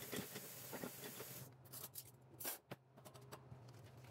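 Tap water running into a stainless steel kitchen sink while a wooden spoon and dishes are rinsed, with light clinks and knocks of dishware. The rush of water drops away about a second and a half in, leaving scattered clatters.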